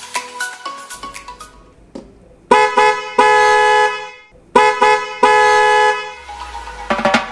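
Hella Black Twin Tone snail horns sounding loud, steady two-note blasts: a short toot then a longer hold, twice in a row, starting about two and a half seconds in. Background music plays before and after the horn.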